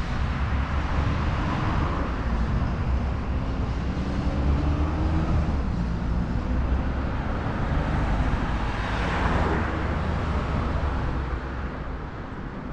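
Steady city street traffic: vehicle engines running close by, with a car passing about nine seconds in.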